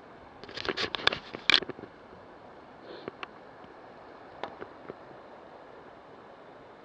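Bicycle riding up a rough road: steady wind and road noise, with a quick cluster of clattering knocks about half a second to a second and a half in and a few single clicks later.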